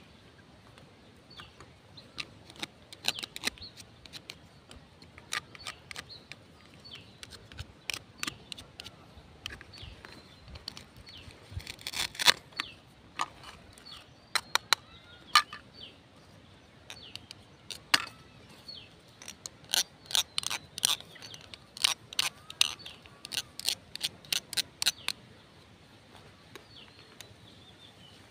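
Plastic toy fruit and vegetable pieces and a plastic toy knife clicking and tapping against each other and a plastic cutting board, in irregular clusters of sharp clicks, with short rasps as velcro-joined toy halves are cut or pulled apart.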